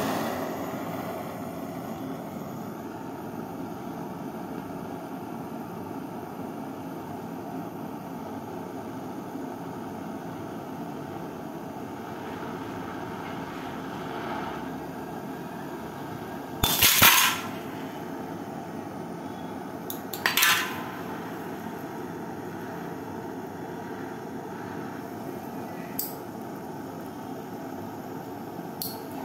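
Butane torch hissing steadily as its flame heats a water-filled drinking glass. About two-thirds of the way through, the glass cracks loudly twice, about three seconds apart, with a couple of faint ticks later: the glass is breaking under the heat.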